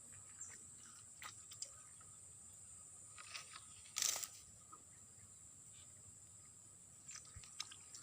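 Faint clicks and rustles of a freshly landed fish being handled, with one brief louder rustle about four seconds in, over a steady high hiss.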